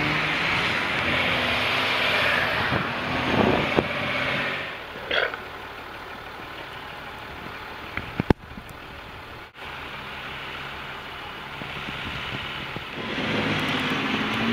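Engines of four-wheel-drive off-road vehicles running as they drive over deep sandy ruts. Louder for the first few seconds and again near the end, fainter in between, with a sharp click about eight seconds in.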